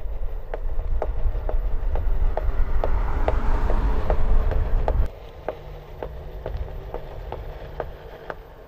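One-wheel electric board rolling along a concrete sidewalk: low wheel and road rumble with a regular ticking about three times a second and a faint steady whine. The rumble drops sharply about five seconds in, and the ticking goes on more quietly.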